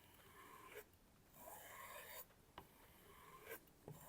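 A nakiri knife blade drawn lightly along a kangaroo-leather strop: about three faint, slow rubbing strokes, each ending in a light tick.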